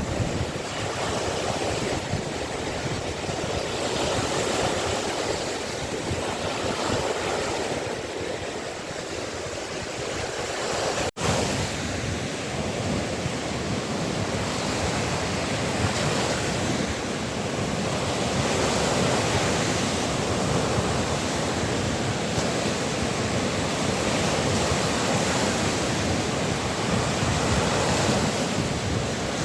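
Waves of the Gulf of Finland washing onto the shore in a steady surf, with wind buffeting the microphone. The sound drops out for an instant about eleven seconds in.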